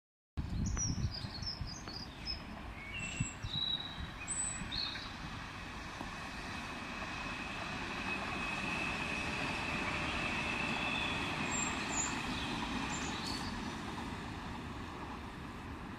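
Red electric multiple-unit trains running past at a distance, a steady rumble that swells and fades, with a high whine for several seconds in the middle. Birds chirp in the first few seconds, and wind rumbles on the microphone.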